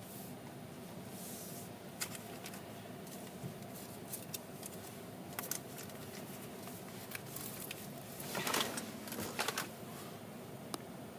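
Low steady hum inside an idling vehicle's cab, with scattered small clicks and rustling; the loudest rustle comes about eight and a half seconds in, with a few more just after.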